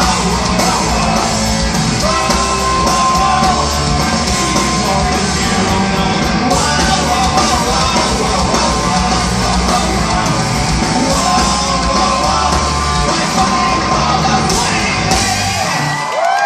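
Punk rock band playing live: drums, distorted electric guitars and bass under shouted singing, heard loud from the crowd through a phone's microphone. The band stops about a second before the end.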